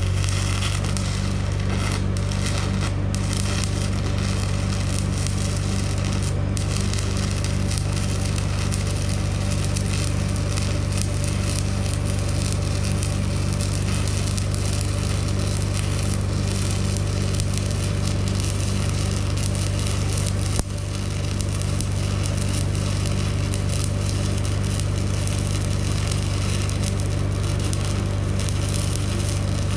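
Stick (shielded metal arc) welding on steel: the arc crackles steadily over a low steady hum. The arc breaks off briefly about twenty seconds in and picks up again.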